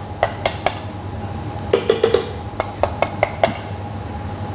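A metal spoon tapping and scraping against a stainless-steel bowl in three quick clusters of ringing clicks, knocking pumpkin cream off into the pan.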